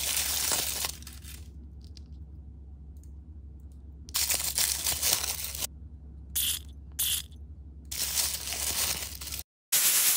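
Close-up crinkling and rustling of thin paper wrapping as small toys are unwrapped. It comes in several bursts with abrupt cuts between them, and two short sharper crinkles come about six and seven seconds in. The loudest burst comes near the end.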